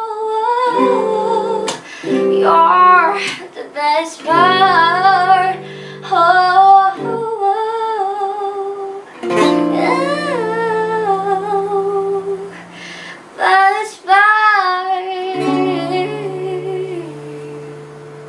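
A girl singing to her own nylon-string classical guitar: plucked chords under a sung melody. Near the end the singing stops and the last chord fades away.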